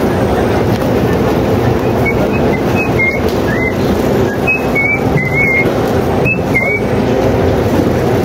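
A truck engine running steadily close by. Between about two and seven seconds in, a run of short, high chirps glides up and down over it.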